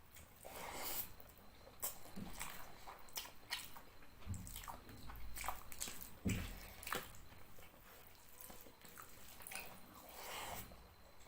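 Close-miked eating sounds of fish curry with rice: wet chewing and smacking, with many short scattered clicks and a few soft low thuds.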